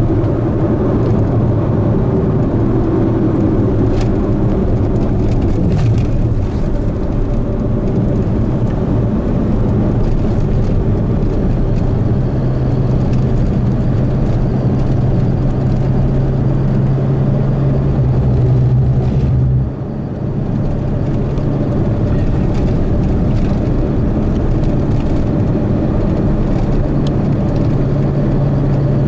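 Car engine and tyre noise heard from inside the cabin while driving at a steady speed: a constant low drone with road hiss, which drops briefly about two-thirds of the way through and then returns.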